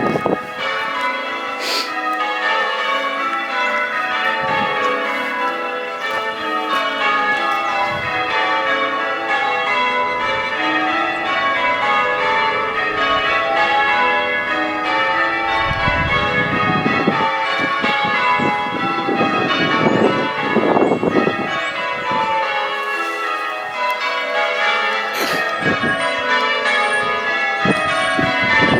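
Church bells change ringing: the front six bells of the tower rung in changes, a continuous, even stream of overlapping bell strikes.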